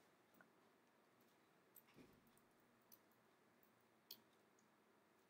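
Near silence: room tone with a few faint, scattered clicks and a soft thump about two seconds in.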